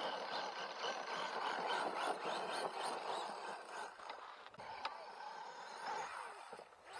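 Small brushless-motored RC truck (DF-4 BL, 3000KV motor on 2S) driving over loose dirt and gravel: the motor whine rising and falling with the throttle, mixed with the tyres scrabbling and throwing grit.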